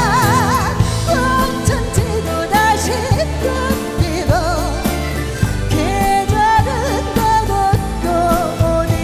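Live pop ballad: a melody line with wide vibrato over band accompaniment with a steady drum beat.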